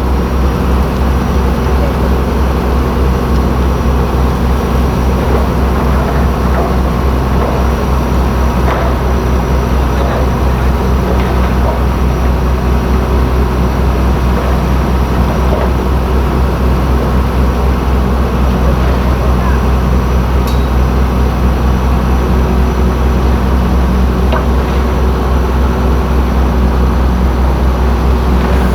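Heavy earthmoving machine's diesel engine running steadily, a deep drone with a thin high whine above it and a few faint clanks.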